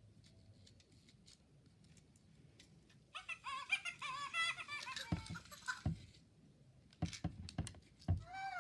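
Fingerlings baby monkey toy chattering and giggling in a high, quickly warbling electronic voice for about three seconds, followed by a few knocks of the toy being handled.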